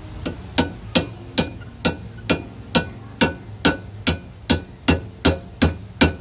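A hammer striking metal in a steady rhythm, about two blows a second, each with a short metallic ring.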